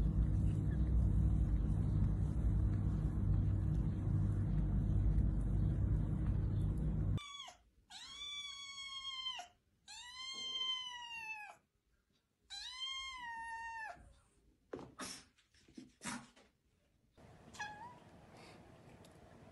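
A loud low rumble that cuts off suddenly, then a young kitten meows three times, each call long and rising then falling in pitch. A few short high squeaks follow, and then a faint short meow near the end.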